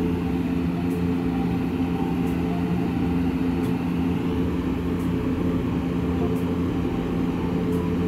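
A steady mechanical hum with a low rumble underneath, holding the same pitch and level throughout.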